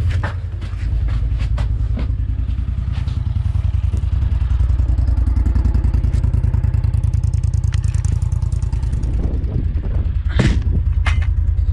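A farm machine's engine running steadily at close range, with a knock or clatter about ten seconds in.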